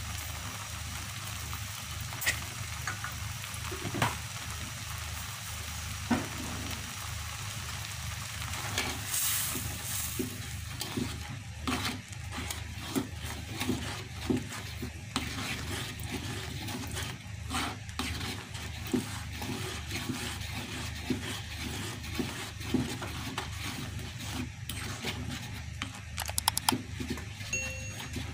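Salted egg yolk sauce sizzling in a wok, with a spatula stirring and scraping through it in frequent short strokes from about ten seconds in.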